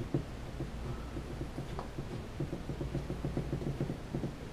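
Small clicks from a precision Torx screwdriver turning a tiny screw out of a Parrot Bebop 2 drone's arm. About halfway through they become a quick, even run of light ticks, roughly six or seven a second.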